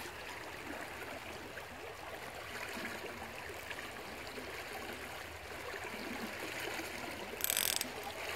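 Steady flow of a small stream, with the clicking ratchet of a fly reel as line is pulled off. A brief louder high rasp comes near the end.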